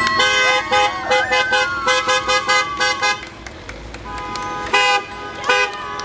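Car horns honking from passing cars in a rapid run of short toots for about three seconds, then two more short honks near the end, in answer to roadside signs asking drivers to honk. Voices shout over the first honks.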